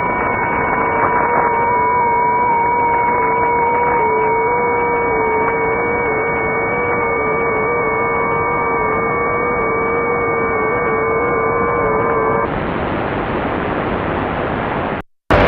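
Shortwave receiver in upper sideband mode on 3572/3573 kHz: several steady whistling tones over radio hiss, the lowest one wavering slightly in pitch. About twelve seconds in the tones stop and only a brighter hiss remains, which cuts out briefly near the end.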